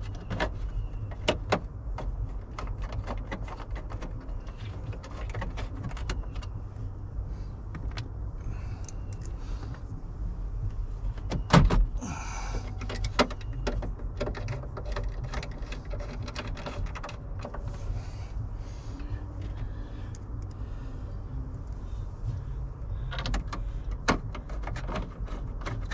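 Scattered clicks, taps and light rattles of screws and plastic trim being handled and refitted around a 2000 Ford F-250's steering column and dash, with one sharper knock about halfway through, over a steady low rumble.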